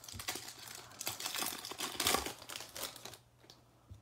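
A foil trading-card pack crinkling and tearing as it is ripped open by hand, with a dense crackle that stops about three seconds in.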